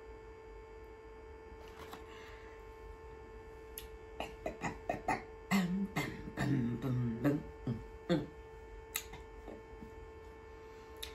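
A steady hum with a fainter higher tone under it. From about four seconds in comes a scatter of sharp taps and knocks, and a little after the middle a few short vocal sounds from a woman.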